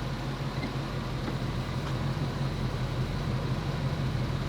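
Ford Excursion's engine idling steadily with a constant low hum.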